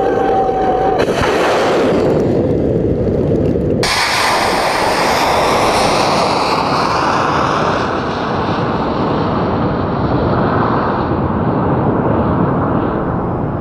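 Stratos II+ hybrid rocket motor firing at liftoff and climb-out: a loud, continuous rushing noise. Its tone changes abruptly about one and about four seconds in, and the high hiss slowly fades over the second half.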